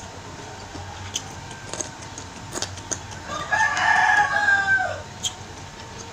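A rooster crows once in the background, one call of about a second and a half in the middle, dropping in pitch at the end. Scattered small clicks of chewing and fingers picking at meat on the plate.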